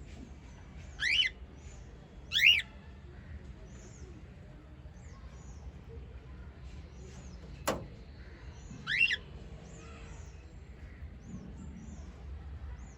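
Small pet parrots calling: three loud squawks, about a second in, two and a half seconds in and nine seconds in, over faint high chirping that keeps on throughout. A single sharp click comes a little before the last squawk.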